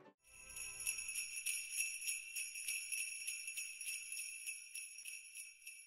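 Sleigh bells jingling, shaken in a quick, even rhythm and fading away toward the end.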